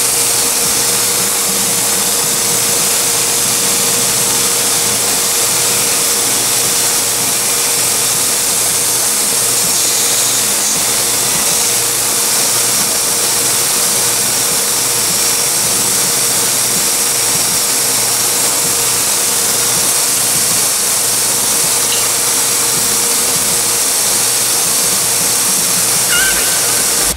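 Small benchtop belt grinder with a narrow sanding belt running steadily: a constant hum under the hiss of the belt.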